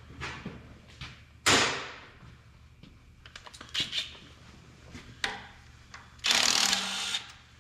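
Hand tools and metal parts handled in a shop: a sharp metal clank with a ringing tail about a second and a half in, then a few lighter knocks and clicks. Near the end a power tool runs in a single burst of about a second.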